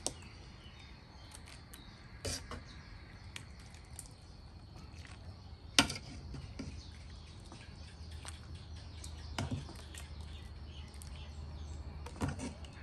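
Quiet outdoor ambience with faint bird chirps, broken by about five short knocks, the loudest about six seconds in.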